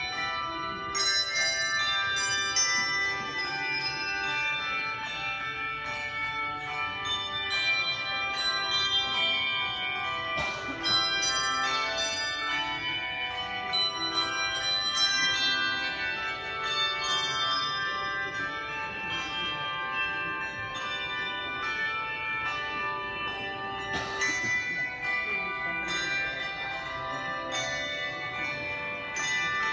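Bells rung in a quick continuous sequence, several strikes a second, their tones ringing on and overlapping.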